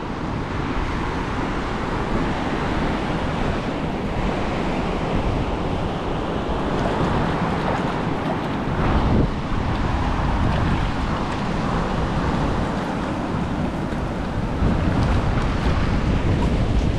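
Ocean surf breaking steadily on a sandy beach, with wind buffeting the microphone.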